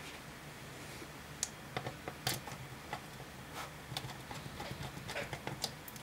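Light, irregular clicks and taps of small metal laptop screws and a precision screwdriver being picked up and handled on a work surface, in faint room hum, as the screws are readied for refitting into the base.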